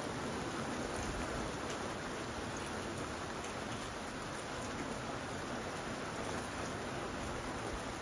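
Steady rain falling: an even hiss with faint scattered drop ticks.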